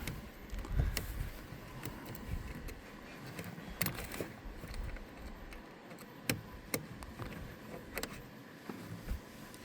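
Scattered small clicks and taps, a few seconds apart, of hands working a ground wire's terminal under the loosened screw of a car battery's negative terminal clamp, over a faint low rumble.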